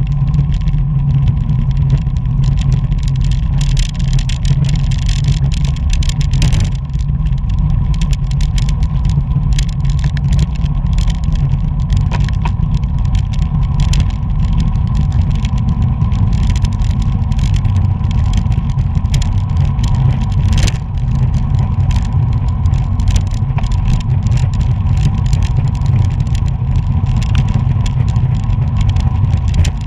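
Wind rushing over the microphone of an action camera on a moving road bike, a loud, steady low rumble, with frequent small clicks and rattles from the bike over the road and a faint steady whine underneath.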